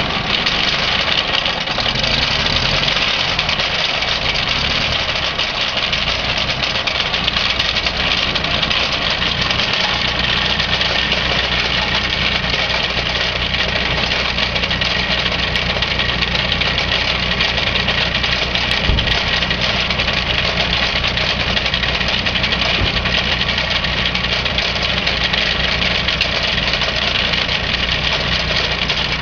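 Ferguson TEF20 tractor's four-cylinder diesel engine running steadily while the tractor is driven slowly. Over the engine runs a steady high-pitched rattling whir, which the owner puts down to the radiator fan and loose ball bearings in the cooling water pump.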